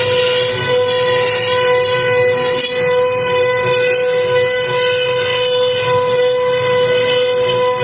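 CNC router spindle running: a steady, unbroken whine with a strong pitch and overtones, over a low rumble.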